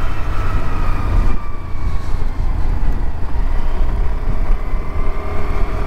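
Motorbike riding along a road: the engine runs steadily under heavy wind rumble on the microphone, its faint whine dipping slightly in pitch about a second in and rising again near the end.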